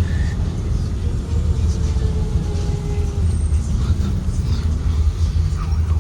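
2023 Blue Bird Vision school bus with a Ford 7.3L V8 engine, heard from inside the bus while riding: a steady low engine and road drone.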